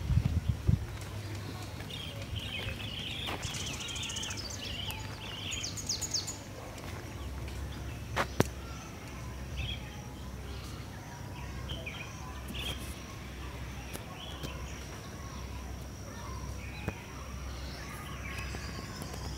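Outdoor ambience: small birds chirping several times, most in the first few seconds, over a steady low rumble. A single sharp click comes about eight seconds in.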